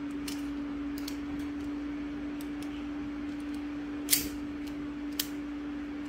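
Gerber MP600 multi-plier being flicked to slide its plier heads out: a few light metal clicks, then two sharp clacks about four and five seconds in as the heads shoot out and catch. A steady low hum runs underneath.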